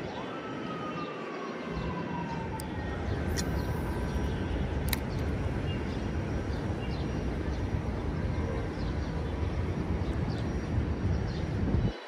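Steady low outdoor rumble, with a faint whine sliding down in pitch over the first few seconds; the rumble cuts off suddenly at the end.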